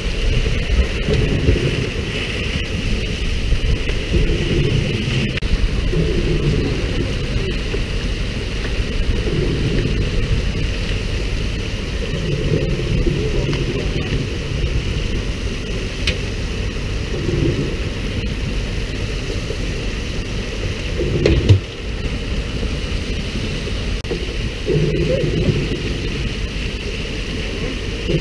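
Steady hiss of water spray from a pole-and-line tuna boat's sprinklers falling on the sea like rain, over a low rumble of wind on the microphone. A single sharp knock comes about two-thirds of the way through.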